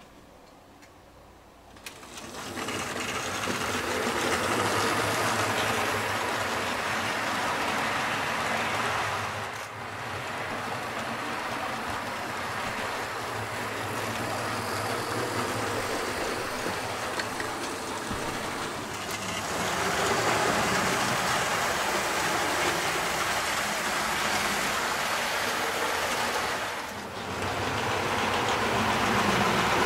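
Model train running: a 1970s Hornby Silver Seal tender-driven OO gauge locomotive, Evening Star, pulling coaches. It starts about two seconds in, then gives a steady whir of the tender motor and rumble of the wheels on the track, dipping briefly twice.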